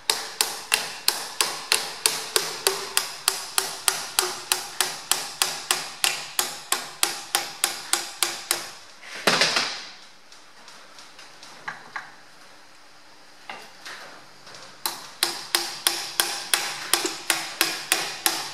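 Hammer blows on an alloy punch, about four a second, driving a stuck valve out of a John Deere power steering column. The valve is tight on its O-ring. About nine seconds in, the hammering breaks off with a brief rush of noise and a few seconds of only scattered taps, then resumes.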